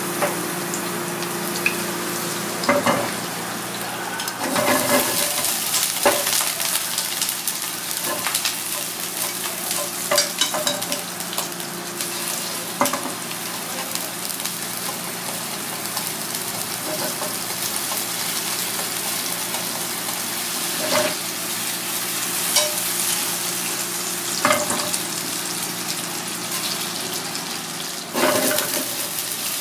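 Sliced garlic sizzling in oil in a frying pan over a gas flame, stirred with wooden chopsticks that click against the pan now and then. Near the end the sizzling grows louder as chunks of lobster meat go into the pan.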